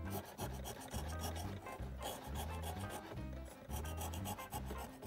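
Repeated rasping scrape strokes of a hand tool taking the leftover residue of the old foam surround off the rim of an Altec Lansing 505A midrange speaker, over background music with a steady bass line.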